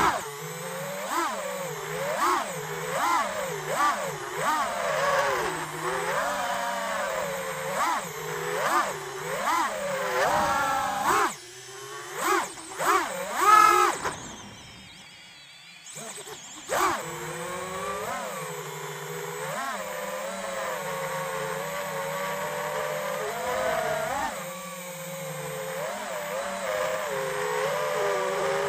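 FPV quadcopter's brushless motors and propellers whining, the pitch rising and falling over and over with the throttle. About fourteen seconds in the throttle is cut and the whine falls away almost to nothing for about two seconds before it picks up again and holds steadier.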